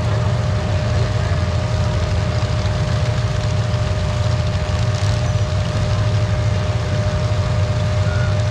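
Demolition derby car engines running steadily, without revving or crashes, with a steady thin tone over the low rumble.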